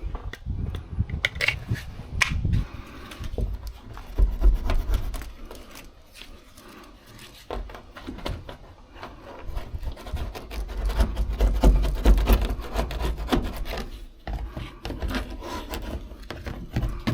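Irregular rubbing and scraping with scattered knocks and clicks, with heavier low thuds about four seconds in and again from about ten to thirteen seconds in, as interior parts are handled inside a truck cab.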